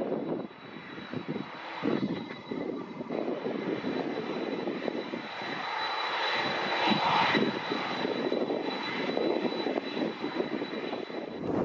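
Boeing 767-300 freighter's jet engines at taxi power: a steady high whine over a continuous rushing hum, swelling somewhat about halfway through as the aircraft rolls past.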